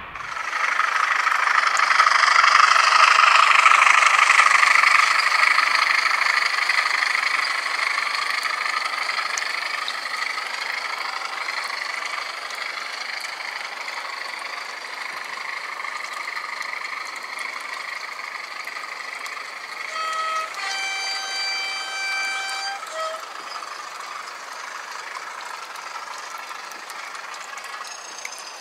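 Model train running on garden railway track: a steady rushing of wheels on rail, loudest in the first few seconds and slowly fading as it passes. About twenty seconds in, a two-tone horn sounds for some three seconds.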